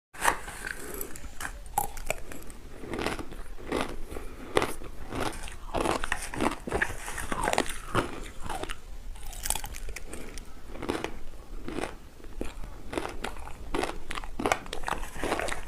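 A person biting and crunching ice cubes, a rapid irregular run of sharp cracking crunches.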